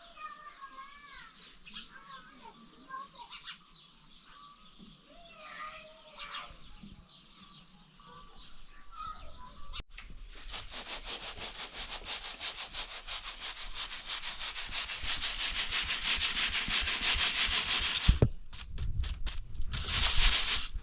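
A few bird chirps, then a fast, rhythmic scraping sound that grows steadily louder for about eight seconds before stopping, followed by a few low thumps near the end.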